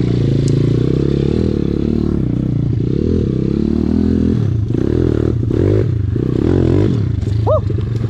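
SSR 170TX pit bike's single-cylinder four-stroke engine revving up and down under riding, the throttle cut and reopened several times.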